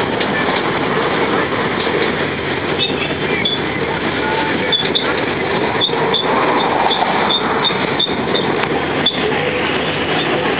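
Steady running noise heard from inside the open carriage of a rubber-tyred tourist road train on the move, with small rattles and ticks from the carriage.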